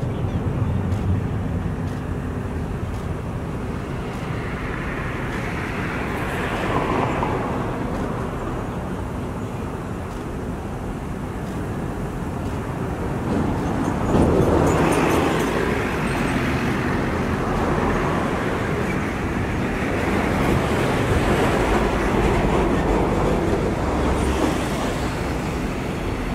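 Background road-traffic rumble, with vehicles passing three times, each swelling and fading over a few seconds.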